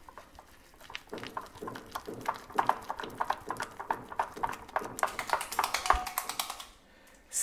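Silicone spatula whipping softened butter in a small glass bowl: a rapid run of taps and scrapes against the glass, several a second. It starts about a second in and stops shortly before the end.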